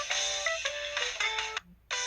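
Built-in ringtone of an LG-SU910 mobile phone: a bright synthesized melody of quick stepping notes. It breaks off into a short pause about one and a half seconds in.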